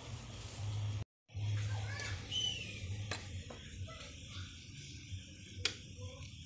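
Metal spatula knocking against the pan a couple of times while stirring malunggay leaves into the soup, over a steady low hum, with a short high chirp about two seconds in.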